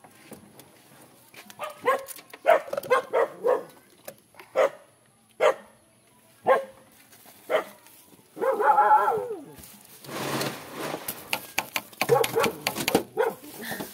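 A dog barking repeatedly: a quick run of barks, then single barks about once a second, a longer drawn-out call, and another flurry of barks near the end. A short rush of noise comes in between, about ten seconds in.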